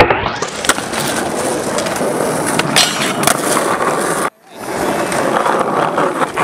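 Skateboard wheels rolling over rough asphalt, with a sharp clack of the board hitting a flat rail at the start and a few more board clacks. The sound cuts out abruptly about four seconds in and fades back in with more rolling.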